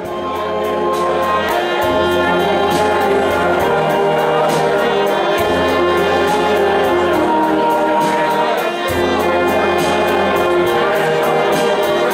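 Concert wind band playing live: clarinets, brass and drum kit together in full, with a steady drum beat and held bass notes, swelling up over the first second or two.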